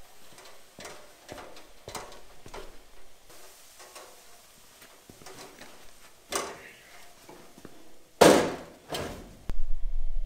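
Parts and tools being handled while fitting body panels on a van: scattered light clicks and knocks, then two loud clunks about eight and nine seconds in. A low hum comes in near the end.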